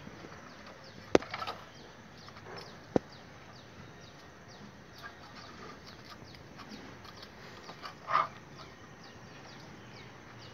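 Hens clucking in the background, with faint quick high chirps throughout. Two sharp clicks, about two seconds apart, come from hands working tie wire around steel rebar.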